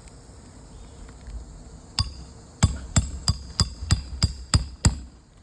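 A hammer striking a shingle nail-driving tool to drive a roofing nail in under a lifted shingle: one blow about two seconds in, then a quick run of eight more blows, about three a second, until the nail goes down.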